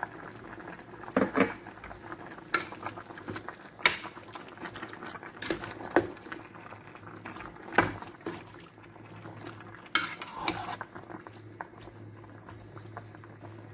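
A pot of beef and cow skin bubbling on the stove, with a metal spoon knocking against the pot now and then as it is stirred, about seven knocks in all.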